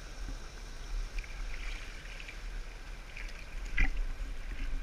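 Fast river current rushing and gurgling around a landing net held in the water, with a low rumble underneath. A brief thump comes near the end.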